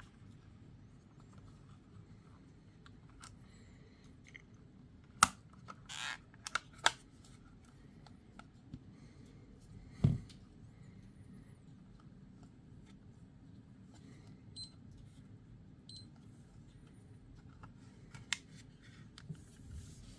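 Canon CC-10 alarm clock calculator being handled: scattered sharp clicks and knocks, the loudest a dull thump about halfway through, and two short high beeps a little over a second apart later on.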